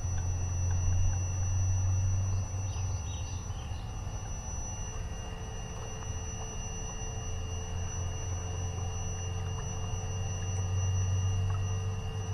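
Steady electric hum of a small multirotor camera drone's motors, with a thin high whine over a low drone. A fainter middle tone joins about halfway through.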